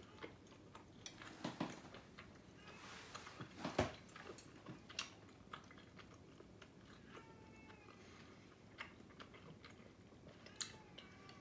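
Quiet chewing of thick, chewy rice noodles, with a few sharp clicks of metal chopsticks and spoon against a glass bowl.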